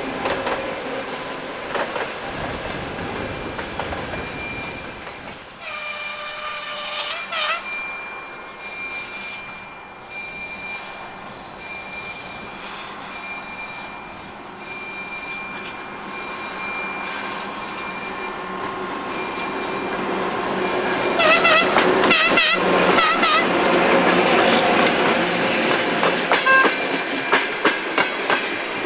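ChME3 diesel locomotive approaching with its passenger train: a short horn blast about 6 s in and a longer, wavering horn about 21 s in, then the engine and wheels grow loud as it passes, with rail-joint clicks near the end. A high chirp repeats about once a second in the quieter stretch.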